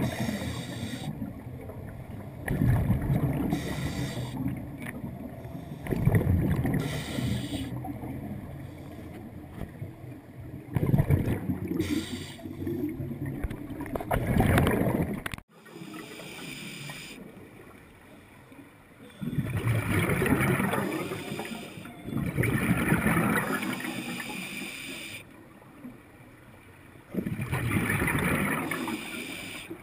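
Scuba diver's regulator exhaling underwater: muffled bursts of bubbling every few seconds, with quieter stretches between breaths. The sound drops out abruptly about halfway through, then the bursts resume.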